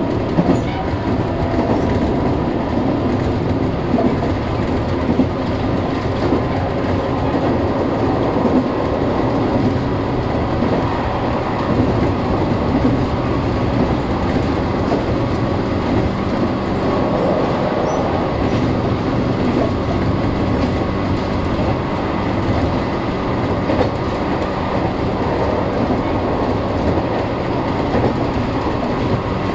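Tobu 800 series electric train running along the line, heard from inside the front cab: a steady rumble of wheels on rail with occasional clacks over rail joints.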